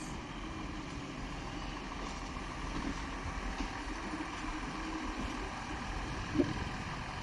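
Diesel passenger trains idling at a station: a steady low engine rumble with a held hum, and a brief knock near the end.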